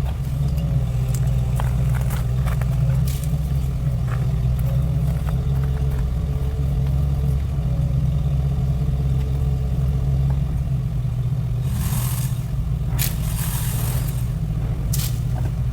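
Steady low rumble of a running vehicle engine, with a few short bursts of hiss about three-quarters of the way through.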